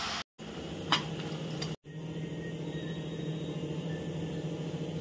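Curry cooking in an aluminium pan on a gas stove: a steady low hum with a bed of noise, and a single metal clink about a second in. The sound drops out briefly twice at cuts.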